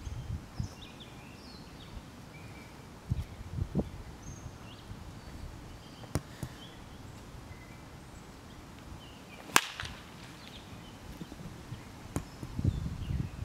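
Three sharp cracks of a baseball bat at batting practice, a few seconds apart, the loudest about halfway through. Faint bird chirps in between.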